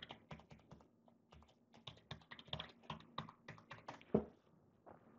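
Typing on a computer keyboard: a quick, uneven run of keystrokes, about four a second, ending in one louder keystroke about four seconds in.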